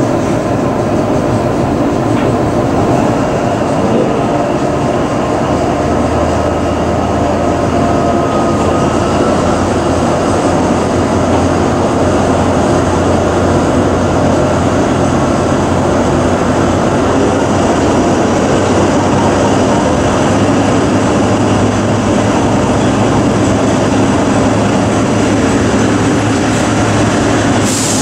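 Diesel-hydraulic engine of a MÁV M43 shunting locomotive running steadily, heard loud from inside its cab, with a deeper hum coming in about six seconds in. A short sharp clack near the end.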